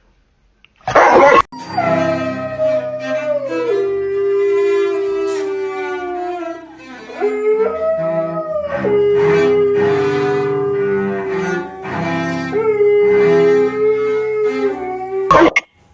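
A dog howling in long, drawn-out notes that slide from one pitch to another, over steady instrumental music. A short, loud rushing noise comes about a second in.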